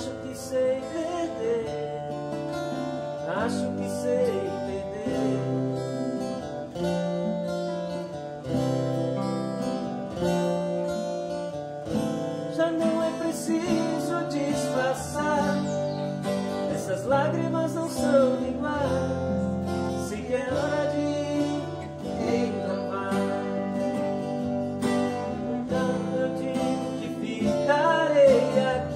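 Several acoustic guitars played together, strumming and picking chords with a melody line on top.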